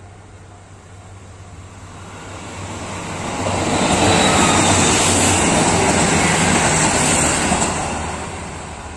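Train passing close by: its rumble builds over a couple of seconds, stays loud for several seconds, then fades away.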